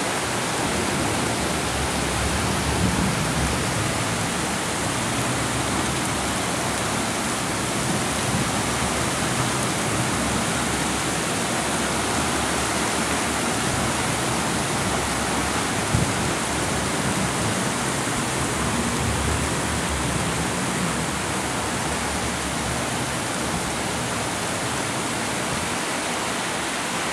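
Heavy rain pouring steadily in a thunderstorm, with gusts of strong wind swelling now and then as a low rumble, and a single brief knock about two-thirds of the way through.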